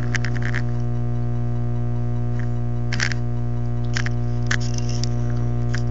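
Steady electrical mains hum, a loud low buzz, with several short clicks and knocks of handling as the camera is moved.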